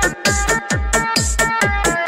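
Electronic dance music with a fast, steady kick-drum beat under held synth chords.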